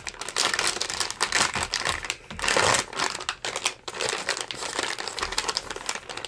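Plastic soft-bait package crinkling as it is torn open by hand, loudest for a moment about two and a half seconds in.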